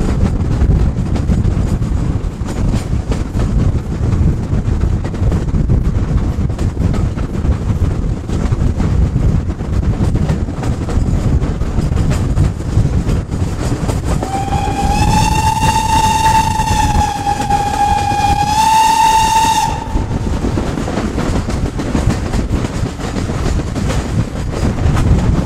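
A steam locomotive's whistle gives one long blast of about five seconds, starting just past halfway. It is a single steady note that sags slightly in pitch and lifts briefly before it cuts off. Under it runs the steady rumble of a moving train.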